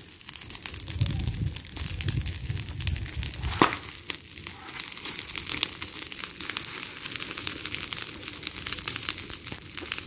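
Pile of dry leaves, branches and corn stalks burning, with a steady crackle of many small pops and one louder snap about three and a half seconds in.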